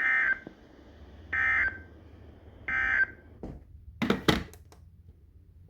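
Emergency Alert System SAME end-of-message code: three short, warbling digital data bursts about 1.3 seconds apart, marking the end of the warning. A few sharp clicks follow about four seconds in.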